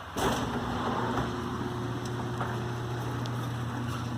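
Electric motor switching on with a click and then running with a steady hum.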